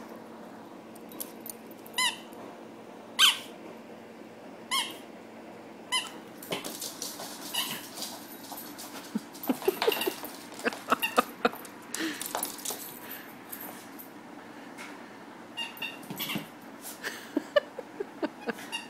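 Squeaky rubber chicken toy squeaking as a small dog bites and chews it. About four sharp squeaks come in the first six seconds, then weaker squeaks mixed with scattered clicks and knocks.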